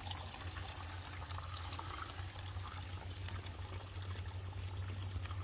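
Shallow water trickling along a muddy wash, over a steady low rumble.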